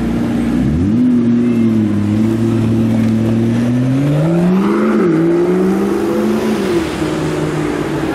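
McLaren P1's twin-turbo V8 pulling away from a standstill: the engine note rises about a second in, holds, then climbs again with a quick dip in pitch around five seconds, before settling lower as the car drives off.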